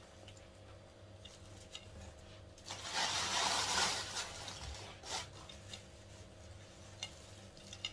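A plastic bag of crisp puff-pastry crumbs rustling as a handful is scooped out, loudest about three seconds in for roughly a second, then a few faint light taps as the crumbs are pressed onto the cake.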